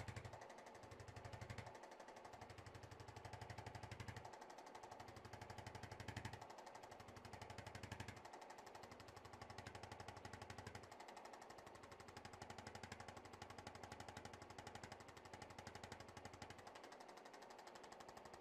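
Chiropractic adjusting gun percussing on the back, faint: a fast, even stream of taps in runs of a few seconds, broken by short pauses.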